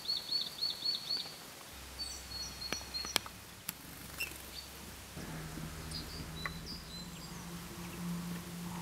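Small garden songbirds calling: a quick run of repeated high notes at the start, then short high whistled notes, with a few sharp clicks in between. A low steady drone comes in about five seconds in.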